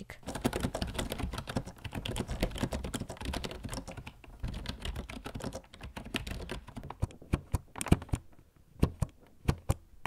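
Typing on a Perixx Periboard 512B's membrane (rubber-dome) keys, on the tactile side and not very loud: a rapid stream of key clatter, thinning to slower, separate keystrokes for the last three seconds or so.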